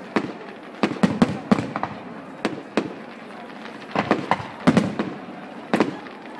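Fireworks display: aerial shells bursting overhead in quick, irregular succession, a dozen or more sharp bangs over a steady background crackle.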